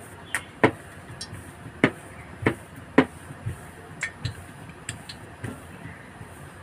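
Wooden rolling pin rolling out bhatura dough on a marble board, giving a series of sharp knocks against the stone at irregular intervals, about nine in all.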